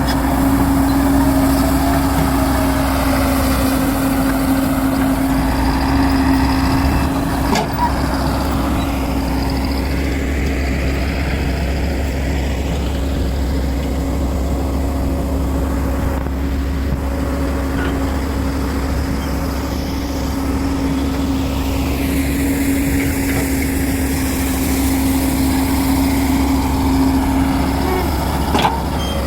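Heavy earthmoving machine's diesel engine running steadily with a constant droning hum. The hum fades through the middle stretch and comes back strongly later on.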